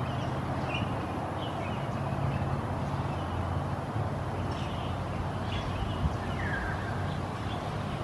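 Scaly-breasted munias giving short, high calls, a handful scattered through, one sliding down in pitch toward the end, over a steady low background rumble that is the loudest sound.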